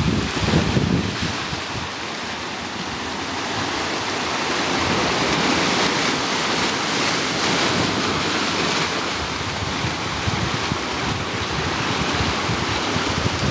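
Sea surf washing and foaming over shoreline rocks, a steady rush of water, with wind buffeting the microphone in gusts near the start.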